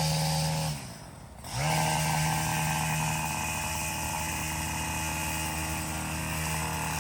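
Two-stroke chainsaw run at full throttle: a short burst that drops off under a second in, then it revs up again and holds a steady high-speed note for the rest of the time.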